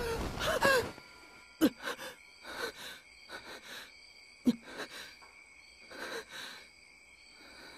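A person's breathing and voice: a short pitched vocal sound at the start, then sighs and two sharp gasps, about a second and a half in and again past four seconds. Under it runs a faint, steady high-pitched ringing.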